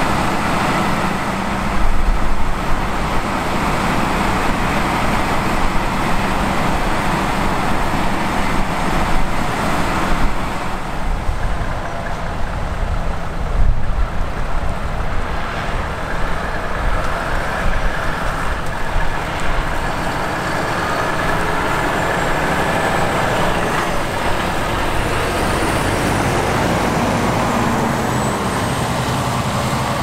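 Fendt 936 tractor's six-cylinder diesel running steadily under load, driving the Hawe grain cart's unloading auger as grain pours into a truck trailer, with a few heavier knocks along the way.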